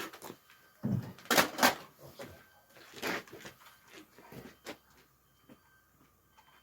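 Scattered knocks and clatters of objects being handled, the two loudest close together about a second and a half in, followed by fainter taps.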